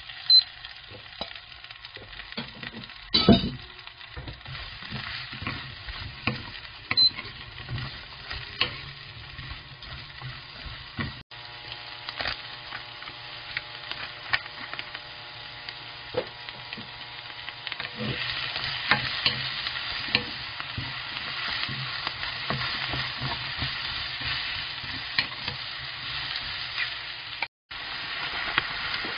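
Cabbage, shiitake mushrooms and green onion stir-frying in oil in a nonstick wok: a steady sizzle with frequent clicks and scrapes of a spatula against the pan and a sharp knock about three seconds in. The sizzle grows louder about eighteen seconds in.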